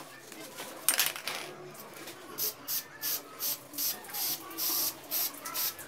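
Aerosol can of matte black spray paint hissing in a string of short bursts, about three a second, after one longer burst about a second in.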